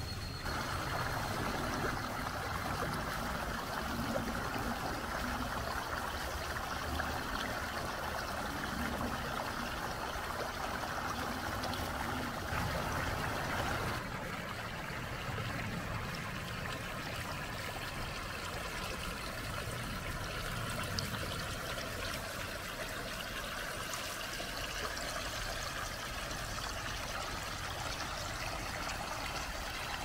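Shallow mountain stream flowing and trickling over smooth bedrock, a steady babble of water. About halfway through the sound shifts a little, to water running closer over rock.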